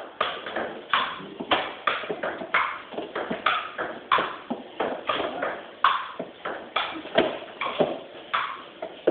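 Table tennis rally: the ball clicking sharply off the paddles and bouncing on the table, about two hits a second in a steady back-and-forth.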